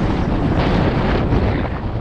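Rushing wind on the microphone of a skier's camera while skiing down a powder slope: a loud, steady roar of noise.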